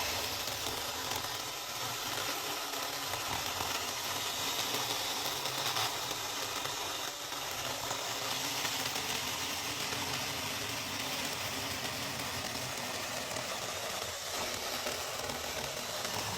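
Battery-powered mini chainsaw running steadily as it cuts through a thick log, a continuous high hiss of the chain in the wood.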